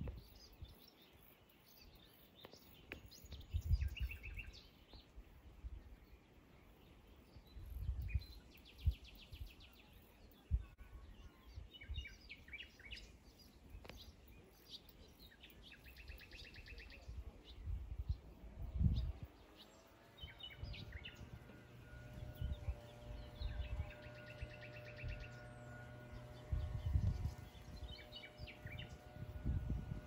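Wild birds chirping and singing, with short rapid trills every several seconds, over low irregular rumbles on the microphone. About two-thirds of the way in, a steady low hum joins.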